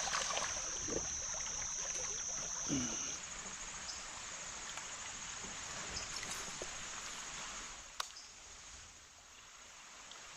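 Running water with an even outdoor hiss, under a steady high-pitched buzz that weakens about three seconds in. One sharp click comes about eight seconds in.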